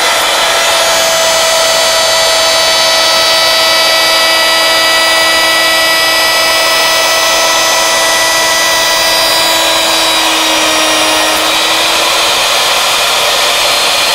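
Router spindle on a CNC lathe running with a steady high whine while its bit cuts slots into a wooden workpiece. The pitch sags slightly about ten seconds in.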